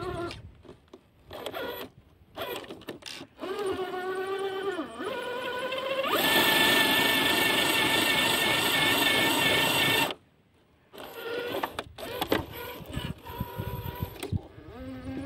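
Electric motor and gearbox of a Traxxas TRX-4 radio-controlled crawler whining in stop-start bursts, the pitch rising and falling with the throttle. A longer, louder run of about four seconds sits in the middle and cuts off abruptly.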